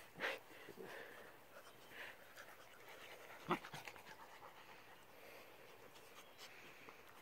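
Puppies play-fighting in a heap: faint panting and scuffling, with a few short sounds, the loudest about three and a half seconds in.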